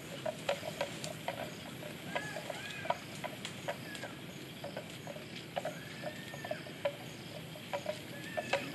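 Outdoor wetland ambience: irregular sharp clicks, several a second, with a few short whistled calls that rise and fall in pitch, over a faint steady hiss.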